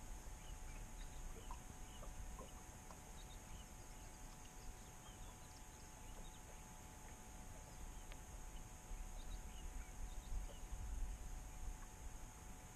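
Faint outdoor ambience: a low shifting rumble, scattered distant bird chirps and a faint steady hum.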